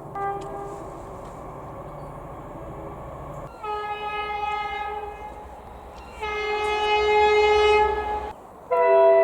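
Locomotive air horn sounding three blasts, the second and third louder than the first, the last still sounding at the end, over the low rumble of the train.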